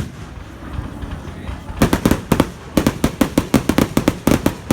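Fireworks display: one sharp bang at the start, then from about two seconds in a rapid string of sharp cracks, several a second.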